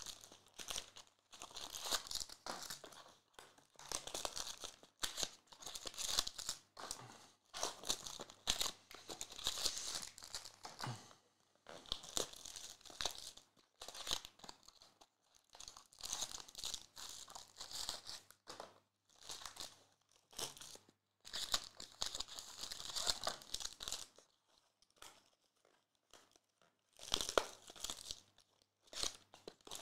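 Foil and plastic trading-card pack wrappers being torn open and crinkled by hand in repeated short bursts, with a few seconds' lull near the end.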